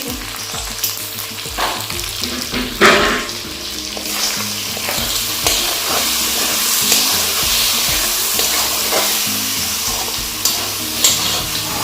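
Pork frying with spices in hot oil in a pan, sizzling steadily while a spatula stirs it, scraping and knocking against the pan, with one louder knock about three seconds in.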